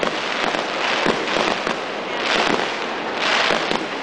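Pyrotechnics going off: a dense, continuous crackle of firecrackers and fireworks, rapid pops that swell and ease without a break.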